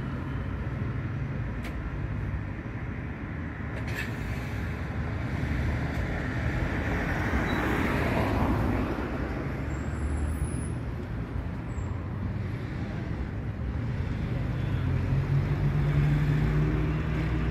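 Steady road traffic noise with a low engine hum, swelling as vehicles pass about eight seconds in and again near the end.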